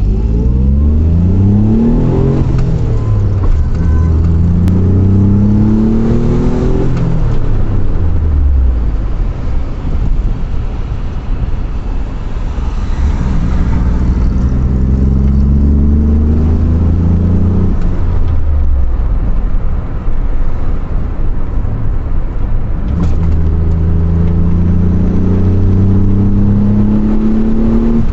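Daihatsu Charade GTti's turbocharged 1.0-litre three-cylinder engine, stock, pulling hard through the gears. Its note rises in long sweeps about four times, dropping back at each gear change or lift of the throttle.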